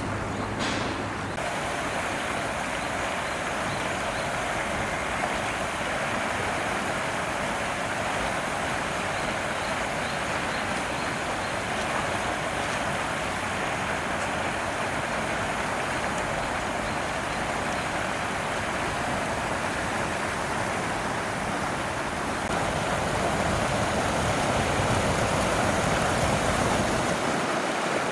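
Water spilling over a low concrete step into a moat: a steady rushing splash that grows a little louder in the last few seconds.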